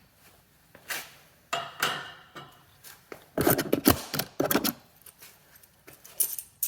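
Metal hand tools clicking and clinking on a bicycle's 15 mm axle nut, in separate bursts, with a dense run of rapid clicks near the middle.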